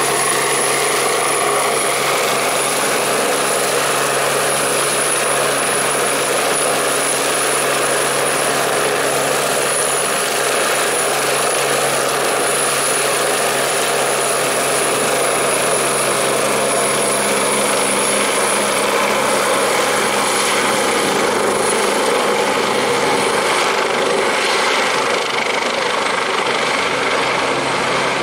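Rescue helicopter hovering close by, its rotor and turbine engines running with a loud, steady noise that holds evenly throughout.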